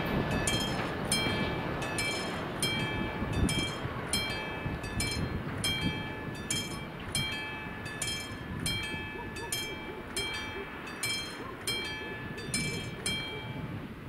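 Level crossing warning bell ringing about twice a second while the crossing lights flash, over the fading rumble of a freight train of car-carrier wagons pulling away. The bell stops near the end as the crossing clears.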